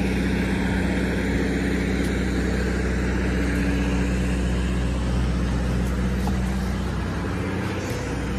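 An engine running steadily at a constant speed: a low, even drone that holds its pitch, with a slight dip near the end.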